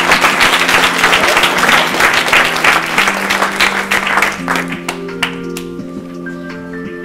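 Audience applause, a dense patter of clapping that dies away about five seconds in, over background music of held keyboard-like notes that carries on alone afterwards.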